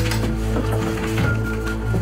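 Background music of held low notes, with a few light ticks scattered through it.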